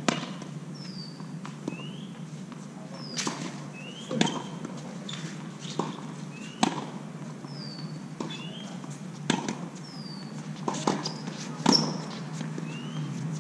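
Tennis balls struck by rackets and bouncing on a hard court during a rally, sharp pops about every second or so. Short high chirps recur between the hits.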